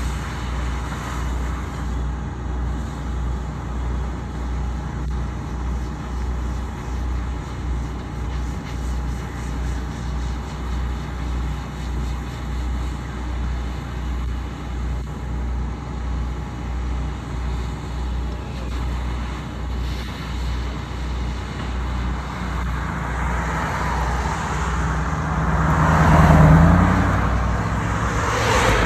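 A motor vehicle engine runs with a low, steady drone and a slow, even throb. Near the end a vehicle passes by, swelling to its loudest and then fading.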